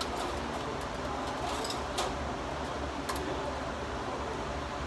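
Steady shop background hum with a few light metallic clicks from hand work on the underside of the car.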